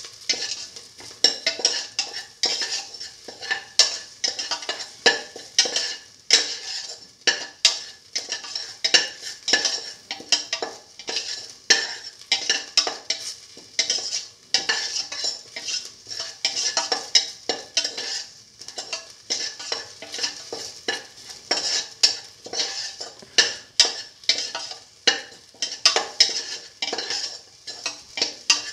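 Metal slotted spoon scraping and tapping against a stainless steel pan, about twice a second, as sliced shallots and ginger sauté in a little oil, with a steady sizzle underneath.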